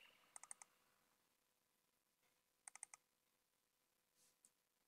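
Faint computer mouse clicks in two quick bursts of about four each, the first about half a second in and the second about halfway through, over near silence.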